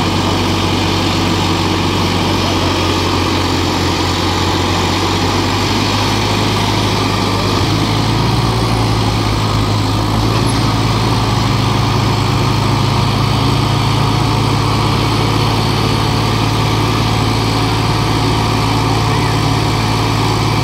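Diesel tractor engines running steadily, picking up slightly in pitch and loudness about eight seconds in.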